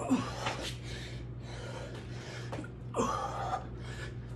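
A man breathing hard and gasping with exertion in the middle of a set of burpees: two heavy breaths, one right at the start and one about three seconds in.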